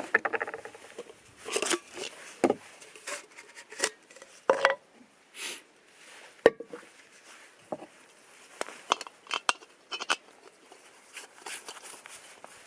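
Small hard objects being handled: irregular clinks, clicks and knocks, a few a second at most, with a couple of short rustles in between.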